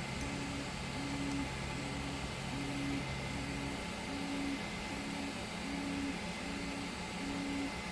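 3D printer stepper motors whining in short, evenly repeating pulses, about three every two seconds, as the print head moves back and forth, over a steady machine hum. A lower steady tone drops out about halfway through.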